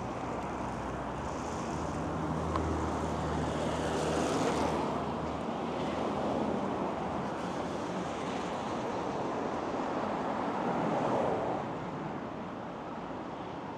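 Street traffic: cars driving past on the road alongside, their engine and tyre noise swelling about four seconds in and again a little before the end, then easing off.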